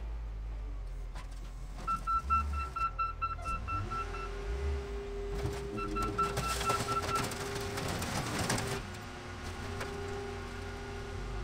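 Case 621F wheel loader running while it lifts a car into a car crusher, its backup alarm sounding in two runs of rapid beeps, about two seconds in and again about six seconds in. Louder metal clattering and engine noise from about six to nine seconds in as the car is set down on the flattened car below.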